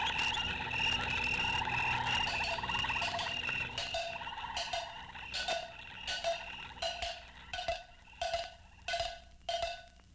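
Frogs croaking with insect trills, fading about four seconds in. Slow, evenly spaced wood-block knocks take over, about one every two-thirds of a second.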